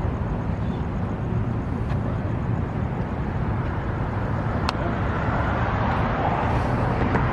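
Steady low rumbling outdoor noise, with a single short click about halfway through.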